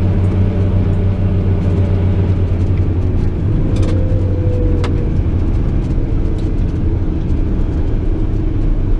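JCB Fastrac 8250 tractor's Cummins diesel engine running steadily with a deep, constant drone. A couple of sharp clicks sound about four and five seconds in.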